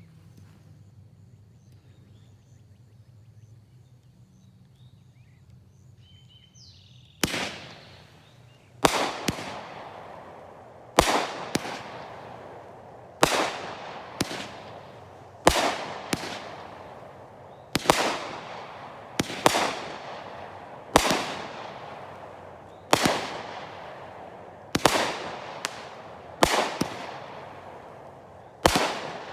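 AFW Spring Lightning 25-shot firework cake firing shot after shot, beginning about seven seconds in. It fires roughly a dozen shots, one every one and a half to two seconds, each a sharp bang trailing off into a fading hiss.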